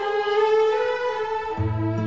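Instrumental background music: a slow melody of long held notes, with a low bass note coming in about one and a half seconds in.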